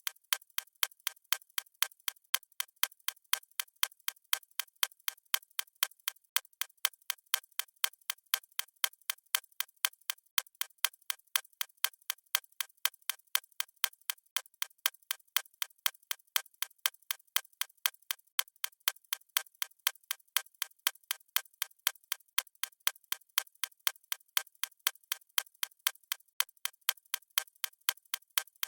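Clock-style ticking sound effect of a countdown timer: sharp, evenly spaced ticks at several a second, running without a break.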